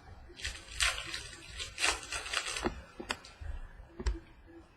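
Trading cards being handled and slid against one another: a few seconds of rustling card stock, then a couple of light clicks.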